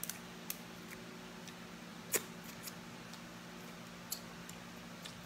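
A few faint, sharp clicks and snaps of shellfish being peeled and eaten by hand, the loudest about two seconds in, over a steady low hum.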